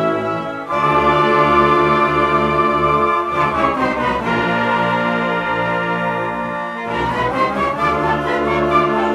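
Brass-led band music with sustained chords, swelling to a fuller, louder entry about a second in and changing chords twice more.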